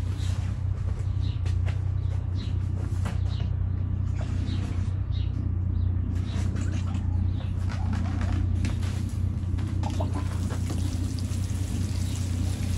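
Water running steadily with a low rumble as a watering can is filled, with scattered knocks and rustles over it.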